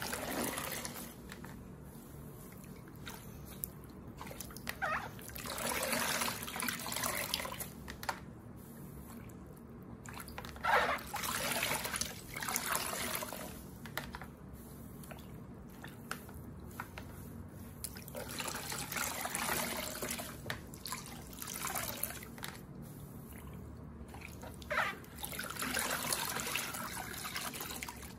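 A large foam block sponge squeezed and released again and again in plain rinse water in a plastic basin: wet squelches with water streaming out and dribbling back into the basin, in swells every few seconds.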